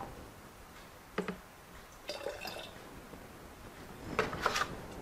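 Bleach poured from a plastic jug into a small plastic measuring cup, trickling in, with light knocks of the plastic being handled. The loudest sounds are a few sharp clicks near the end.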